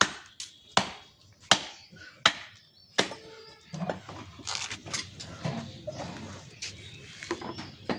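Butcher's knife chopping into a beef leg on a wooden log chopping block, with sharp strikes about every three-quarters of a second for the first three seconds. After that come scattered knocks and handling noise as the cut meat is lifted and moved.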